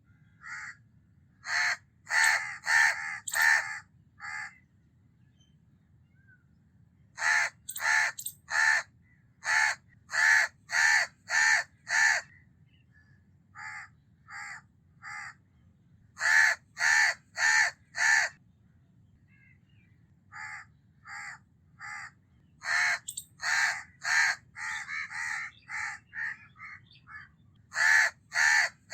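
House crow (Corvus splendens) cawing: short, harsh caws in runs of several at a time, about two to three a second, with pauses of a second or two between runs.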